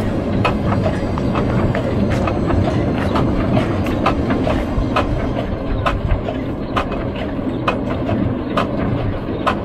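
Vintage threshing machine running: a steady mechanical hum with an even clacking at about two strokes a second.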